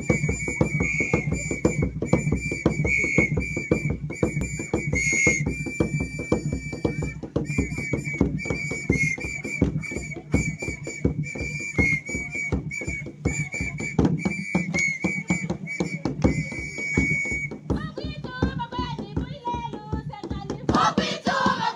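Whistle blown in short, rapid blasts over fast, steady drumbeats for a Kilumi dance. The whistling stops a few seconds before the end and group singing takes over over the drums.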